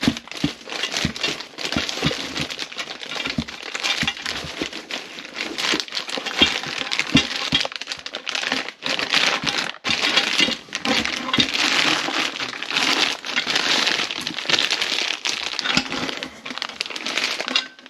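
Packaging wrap crinkling and rustling with small crackles and clicks as titanium exhaust header pipes are unwrapped by hand, going on continuously with a few brief pauses.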